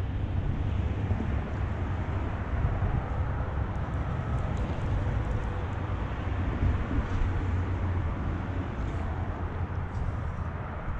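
Steady outdoor rumble with no breaks: wind buffeting the microphone mixed with highway traffic, over the rush of a shallow stream.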